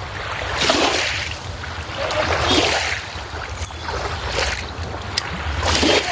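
Small waves lapping at the water's edge, swelling and fading about every one and a half to two seconds, over a steady low rumble of wind on the microphone.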